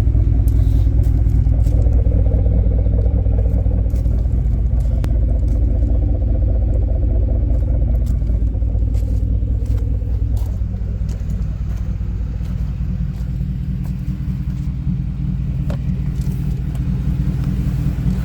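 2010 Ford F-150's 4.6-litre two-valve V8 engine running, louder for the first several seconds and then settling to a lower, steadier run, with a rattle. The owner cannot pin down the rattle: he suspects piston slap or a wrist pin in cylinder 3, and also considers timing chains, lash adjusters, the torque converter or the catalytic converters.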